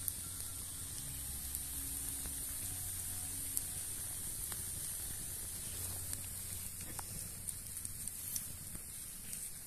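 Open wood fire burning under chestnuts roasting on a flat stone: a steady hiss with a few scattered sharp crackles.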